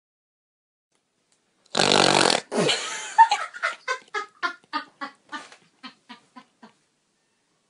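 A woman bursting into loud laughter: a harsh, noisy blast a couple of seconds in, then a run of short laughs, about four a second, that grow fainter and stop near the end.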